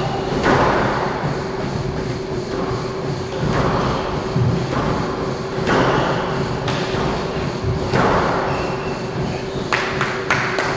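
Squash rally: the rubber ball struck by racquets and thudding off the court walls, a sharp hit with a ringing echo roughly every second, irregularly spaced, over a steady low hum.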